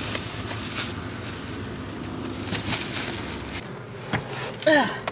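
Outdoor traffic-and-wind noise with a few knocks and rustles from grocery bags and items being moved and packed. The background drops off suddenly about three and a half seconds in.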